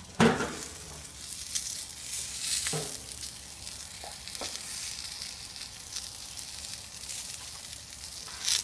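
A whole chicken roasting on a hot gas grill, its drippings sizzling on the grates: a steady hiss with many small crackles and pops. A loud clunk sounds right at the start, and a shorter click near the end.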